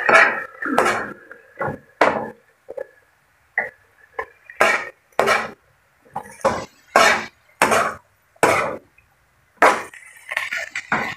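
A spatula scraping and tossing shredded cabbage and carrots around a pan as they are stir-fried: short strokes, about one or two a second, with quiet gaps between them.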